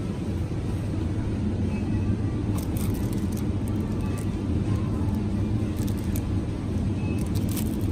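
Steady low hum of supermarket refrigerated display cases, with the plastic wrap on a bundle of asparagus crackling now and then as it is picked up and handled.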